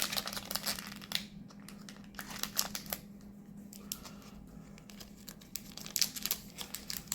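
Plastic trading-card booster pack wrapper crinkling and tearing as it is opened, in dense crackles that ease off for a few seconds in the middle and pick up again near the end.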